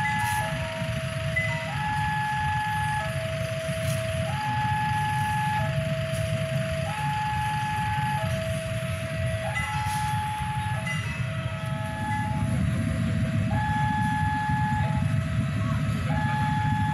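Electronic two-tone warning alarm switching slowly between a higher and a lower note, each held about a second and a quarter, over a steady low engine rumble that grows louder about twelve seconds in.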